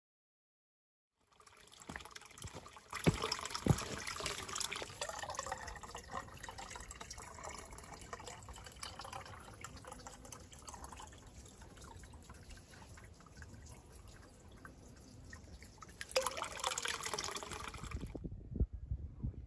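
A plastic water bottle being filled by dunking it in a water trough: water splashing and gurgling as the bottle fills. It starts about a second in, is loudest at about three seconds and again shortly before it stops near the end.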